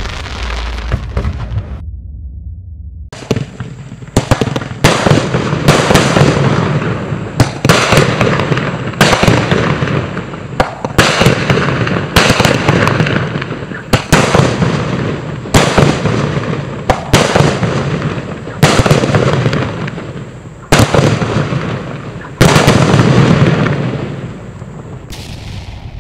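Bonfireworks 'Shiny Golden Palms' consumer firework cake firing in sequence, a shot roughly every one and a half seconds. Each shot is a sharp bang followed by about a second of fading noise as the gold palm breaks and burns out.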